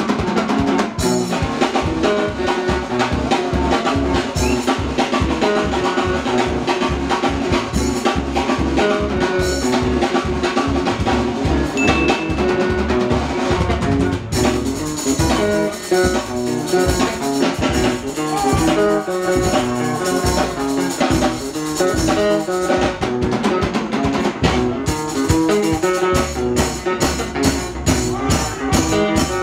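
Sungura band music: interlocking electric guitar lines over bass and a drum kit keeping a steady, driving beat. The music drops out for an instant about fourteen seconds in.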